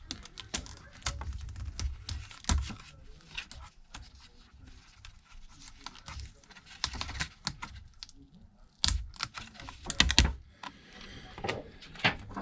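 Irregular light clicks and taps of small tools and parts being handled on a repair bench, with a couple of louder knocks about nine and ten seconds in.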